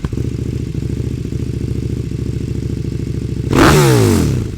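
Motorcycle V-twin engine, plausibly the KTM 1290 Super Duke R's 1301 cc LC8, catching and running at a steady fast idle. About three and a half seconds in, one sharp throttle blip sends it loud and the revs then fall back down.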